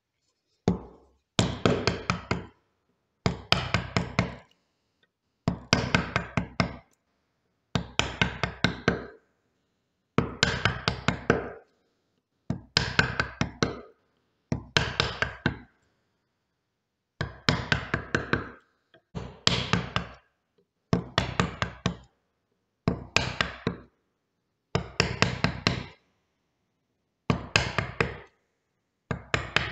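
Mallet striking a bench chisel in quick bursts of several blows, about one burst every two seconds, as the chisel chops the waste out of a hand-cut wood joint.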